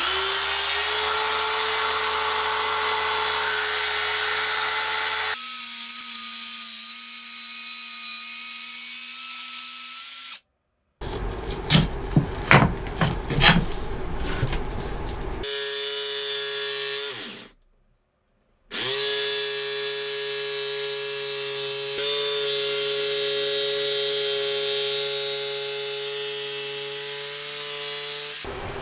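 Handheld electric power tool running at high speed while cutting wood, in several short clips: a steady high motor whine, a stretch of sharp irregular knocks and cracks near the middle, then the motor winding down and starting up again.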